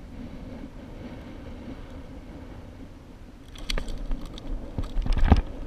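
Water splashing and sharp clicks as a big flounder is clamped in a fish lip-gripper and lifted out of shallow saltwater, starting about three and a half seconds in and loudest about five seconds in. Before that there is only a steady low rumble.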